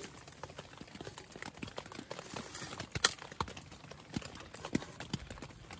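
Irregular light taps and knocks, a few a second, with one sharper knock about three seconds in.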